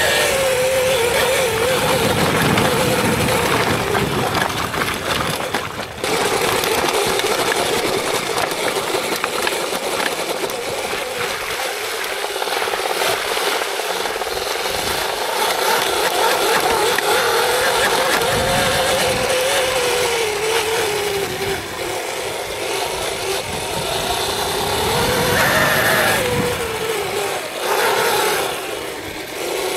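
Electric dirt bike's motor whining, its pitch rising and falling with speed, over a steady rushing noise from the ride.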